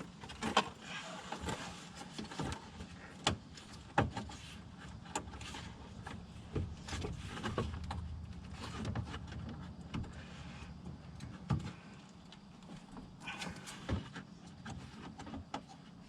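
Hands fitting parts of a car's radiator assembly: irregular clicks, knocks and rustling of plastic and metal pieces being handled and pushed into place, with a few sharper knocks.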